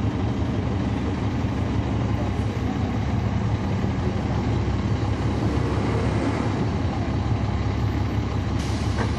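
Caterpillar C13 ACERT diesel engine of a 2009 NABI 40-SFW transit bus, heard from inside the bus, running steadily with a low hum. A short hiss comes near the end.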